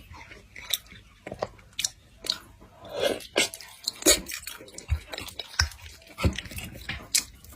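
Close-miked chewing and biting of pork: wet mouth smacks and crunches, several a second at an irregular pace, a few louder bites around the middle.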